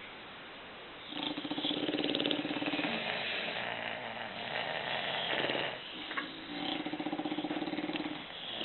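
English bulldogs snoring in long, buzzy snores: one starts about a second in and runs for several seconds, and another comes about two-thirds of the way through.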